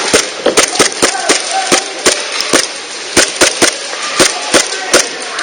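Airsoft guns firing a string of sharp single shots, about fifteen in all at an uneven pace of roughly three a second, over a steady rushing noise.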